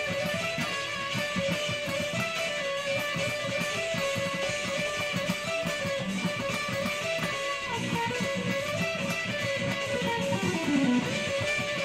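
Electric guitar played in a fast run of quick single picked notes, with a note sliding down in pitch near the end.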